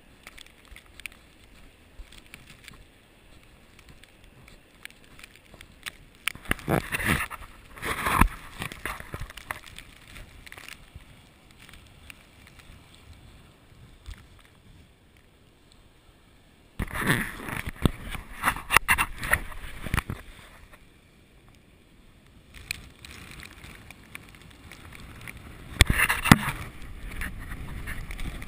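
Snowstorm wind gusting against the microphone: a low steady rush, broken by three loud, rough gusts, one about six seconds in, a longer one past the middle and a last one near the end.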